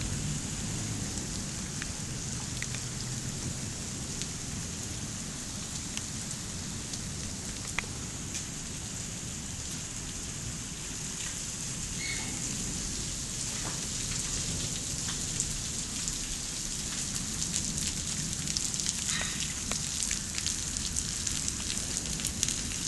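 Hailstorm: a steady hiss of falling hail and rain, with many sharp clicks of individual hailstones striking, growing thicker in the second half.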